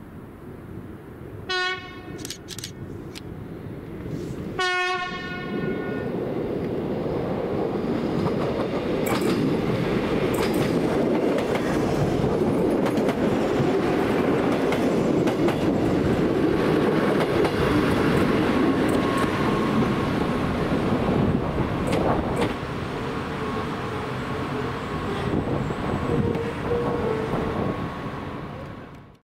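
Coupled Arriva SA133 and SA123 diesel railcars sound their horn twice, a brief toot and then a longer blast, then run past with a steady rumble of engines and wheels clacking over the rails. The sound cuts off suddenly at the end.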